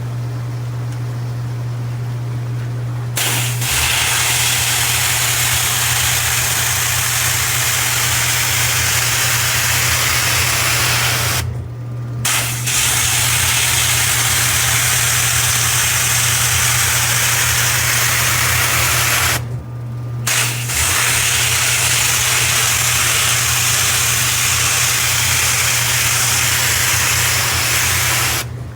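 Pressure washer running with a steady low hum while the high-pressure spray hisses loudly. The spray starts about three seconds in and cuts out briefly twice as the trigger is let go.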